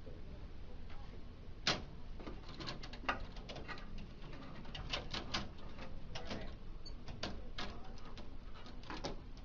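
Irregular light plastic clicks and taps from a laser printer's pickup rollers and their release tabs being worked off the feeder-assembly shafts, with one sharper click about two seconds in, over a low steady hum.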